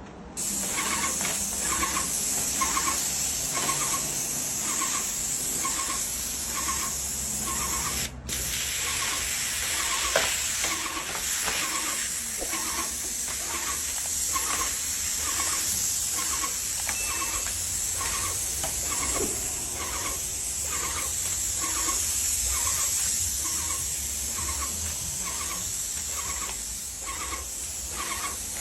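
Airless paint sprayer spraying: a steady high hiss of paint leaving the tip, with a regular soft pulsing under it. The sound cuts out briefly about eight seconds in.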